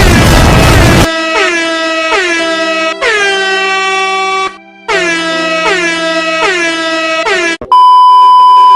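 Meme sound effects: a loud noisy blast for about the first second, then a fast run of distorted air-horn blasts, each dipping in pitch as it starts, with a brief gap in the middle. It ends in a steady high censor beep that cuts off abruptly.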